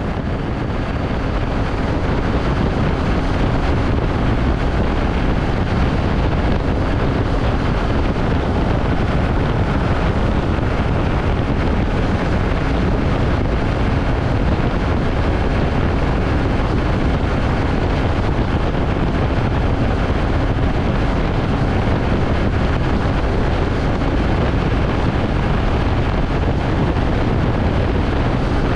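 Strong wind buffeting the camera microphone on a moving motorcycle: a steady rush over the engine and road noise of a 2017 Triumph Tiger 800 XCA, whose three-cylinder engine is running at highway speed. The noise builds slightly over the first couple of seconds, then holds steady.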